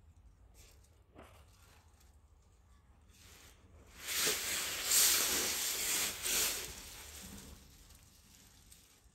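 A loud rustling hiss starting about four seconds in and lasting about three seconds, with a few stronger swells, over a faint low rumble.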